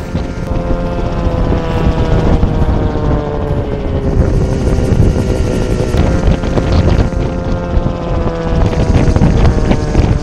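Mosquito Air ultralight helicopter hovering close by: the steady drone of its engine and spinning main rotor, the engine note easing down a little in pitch over the first few seconds and then holding steady.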